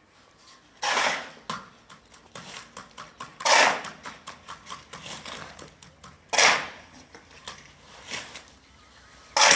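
Four loud scraping strokes about three seconds apart, with fainter clicks and taps between them.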